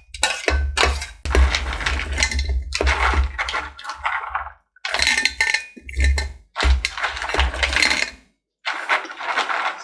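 Cut coconut pieces and other ingredients being tipped and dropped into a blender jar: a run of irregular clattering knocks with clinks of dishes, broken by a few short pauses.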